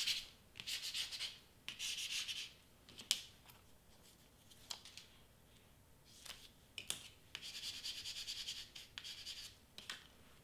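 A small plastic squeegee rubbed in short strokes over double-sided tape on cardstock, pressing the tape down: three quick scraping strokes at the start, a few light clicks and taps in the middle, then a longer run of rapid rubbing strokes.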